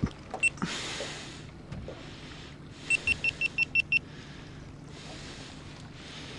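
Electronic beeping aboard a boat: two short high beeps, then a quick run of seven beeps over about a second, over a steady low hum and wind on the microphone. A knock at the start.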